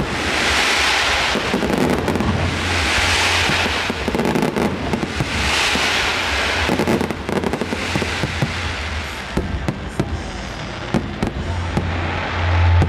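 Fireworks display: aerial shells bursting, with swells of crackling about every two to three seconds, then a quick run of sharp bangs in the last few seconds.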